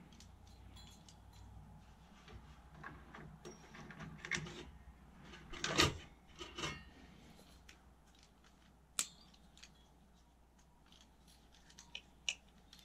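Clicks, rattles and scrapes of plastic and metal computer parts being handled while a desktop's CPU cooler is taken off the motherboard. The loudest rattle comes about six seconds in, a single sharp click at nine seconds, and two more clicks near the end.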